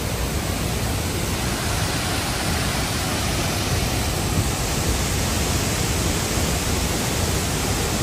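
Large waterfall close by: a steady, even rush of falling water.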